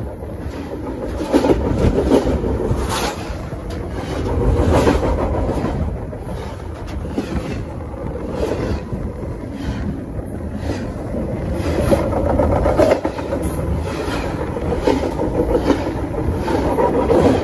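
CN train rolling directly over the top of the phone, heard from between the rails. A continuous loud rumble and rattle of wheels and car bodies swells and eases every few seconds as wheel sets pass, with frequent sharp clicks.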